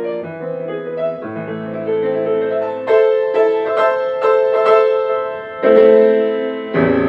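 Solo piano playing a phrase of single notes and struck chords, building to loud chords near the end, the last of which rings on.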